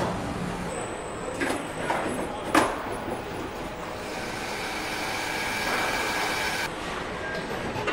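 Car assembly-line machinery: a steady mechanical din with two sharp metallic knocks about a second and a half and two and a half seconds in, the second the loudest, then a steady high whine from about four seconds in that stops near seven seconds.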